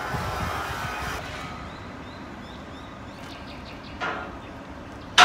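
Faint bird chirps over steady background noise that drops away about a second in. A short knock about four seconds in, then a loud, sharp clack near the end, the loudest sound.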